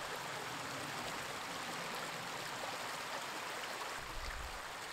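Shallow stream running steadily over stones, a constant rush of water. A brief low rumble comes about four seconds in.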